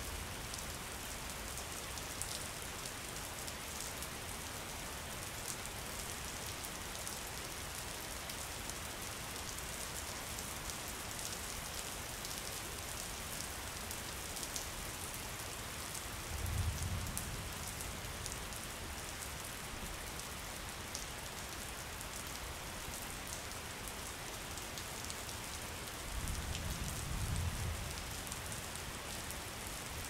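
Steady rain falling on water and foliage, an even hiss with scattered sharp drop ticks. Two brief low rumbles stand out, one just past the middle and one near the end.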